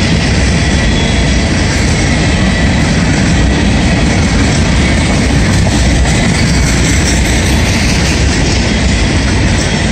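Empty CSX covered hopper cars rolling past close by: a loud, steady rumble of steel wheels on the rails.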